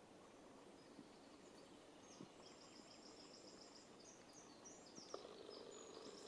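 Near silence in open forest, with a distant songbird singing faint, high, quickly repeated phrases from about a second and a half in.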